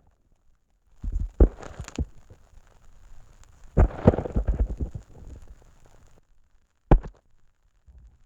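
Snow heard through a contact microphone: dull, low knocks and crunches as the snow is struck and compacted. There are a few knocks about a second in, a longer crunching stretch around four seconds in, and a single sharp knock near seven seconds.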